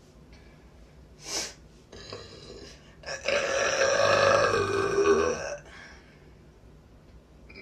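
A young woman burping on command: one long, loud burp of about two and a half seconds, its pitch sinking toward the end, preceded about a second in by a short breathy noise.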